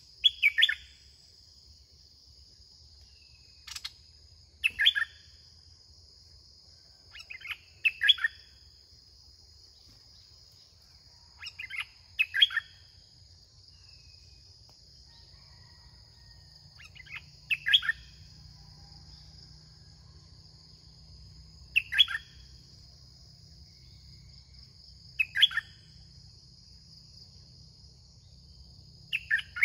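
Red-whiskered bulbul singing short, bright phrases of about half a second, repeated every few seconds, eight times in all. A steady high insect drone runs underneath.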